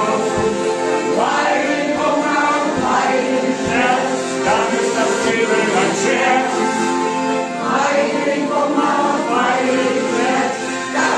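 Piano accordion playing a tune over steady held chords, with singing over it.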